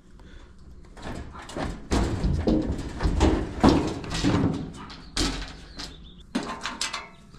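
Sheet-metal dryer cabinet parts being handled and pulled apart: a run of knocks, clanks and scrapes, loudest about three and a half seconds in.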